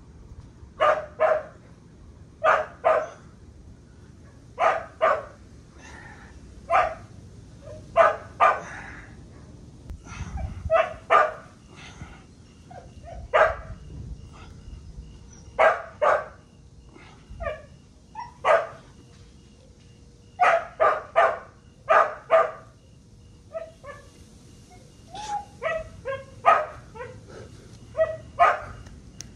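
A dog barking repeatedly, mostly in quick pairs or threes of short barks every second or two.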